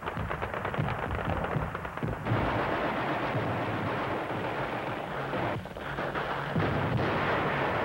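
Sustained battle gunfire: rapid automatic-weapon fire and rifle shots in a dense, almost unbroken rattle, easing a little past halfway.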